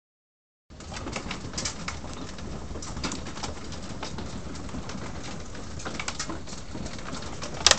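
Small hailstones pattering on a wooden deck and a rubber mat: a dense, irregular crackle of many small ticks that starts a moment in, with one sharper, louder click near the end.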